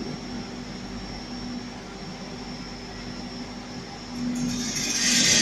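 Gas carburizing furnace installation running steadily, with a low hum and a faint high whistle. About four seconds in, a loud hiss builds up and stays.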